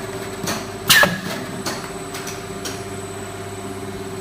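Blow molding machine running with a steady hum, with a loud sharp clank about a second in and several lighter clicks and knocks after it.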